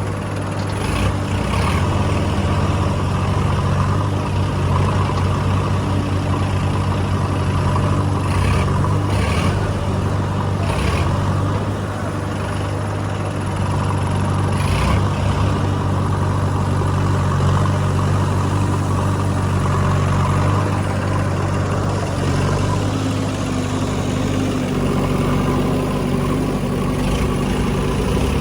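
Heavy diesel engine running steadily, with a few short knocks and clatters over it.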